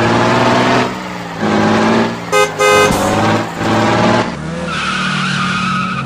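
Truck engine sound for a remote-control miniature truck, revving up and dropping back about every second and a half, with two short horn blasts about two and a half seconds in.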